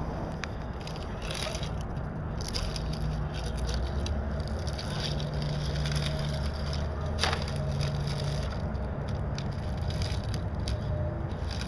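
Scale RC rock crawler crawling over rocks and gravel: tyres crunching and scraping on stone with scattered clicks of shifting pebbles. The electric motor and gear drive hum low underneath, coming and going as the throttle is worked.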